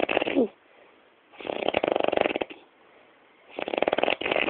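Heavy snoring: rattling, fluttering snore strokes about every two seconds, each lasting about a second. The stroke just at the start and the one near the end each finish with a falling whistle.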